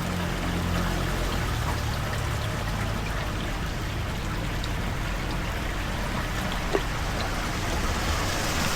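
Floodwater pouring steadily into a storm drain.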